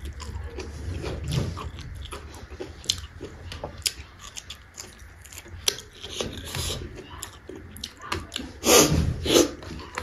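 Close-up mouth sounds of a person chewing a handful of rice with fermented bamboo shoot (soibum), with wet smacking clicks throughout. A louder, noisier burst comes about nine seconds in.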